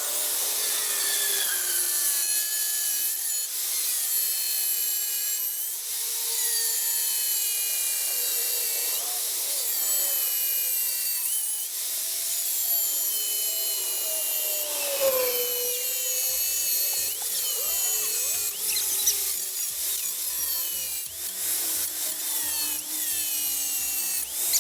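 A power tool cutting through steel seat brackets. It runs steadily with a high whine whose pitch keeps sagging and recovering as it bites into the metal.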